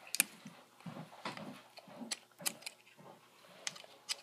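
Faint, irregular small clicks and ticks of a Phillips screwdriver turning the screws into a Rubik's Cube's centres, with the plastic pieces clicking as the cube is handled.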